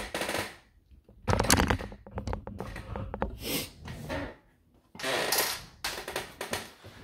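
Small metal clicks and taps with handling rustle: a silver dollar ring blank, with its centre punched out, and the small punched-out disc being put down and moved about on a workbench.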